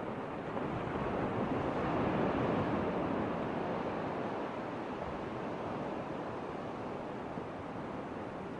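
Steady rushing noise with no distinct events, swelling a little about two seconds in and easing back.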